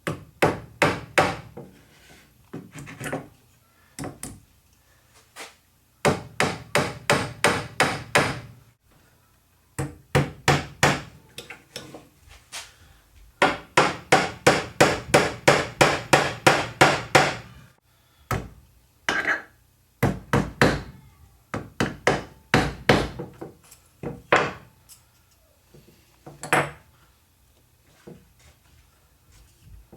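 Hammer striking wood in runs of quick blows, about three a second, with short pauses between the runs.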